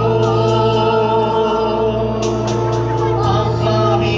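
Devotional music: a choir singing long held notes over accompaniment.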